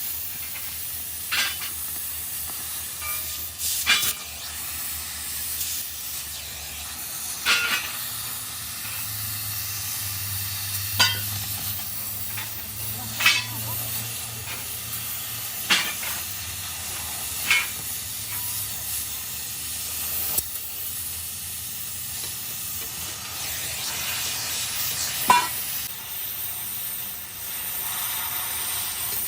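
Steady hissing of a gas cutting torch on steel, with sharp metal clanks every few seconds at irregular intervals.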